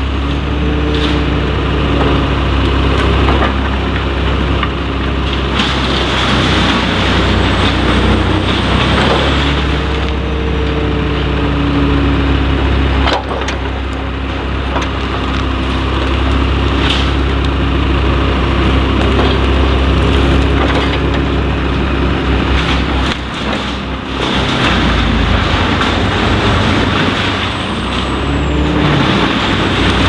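Truck-mounted Bruks wood chipper chipping branches, driven by the Scania R620's V8 engine running hard: a steady loud mechanical din with a whine that dips and rises several times and occasional sharp cracks of wood.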